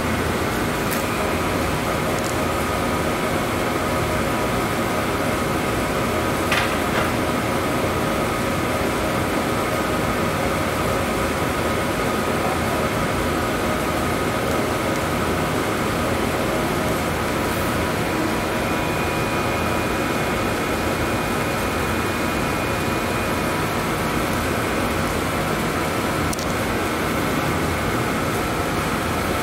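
Steady cleanroom air-handling and ventilation noise: an even rush with a few faint steady hums underneath, and one light click about six and a half seconds in.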